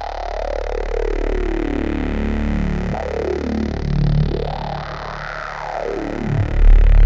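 Roland JD-800 digital synthesizer playing a patch with sweeping tones that rise and fall over a held low bass, dry with no external effects. A louder deep bass note comes in near the end.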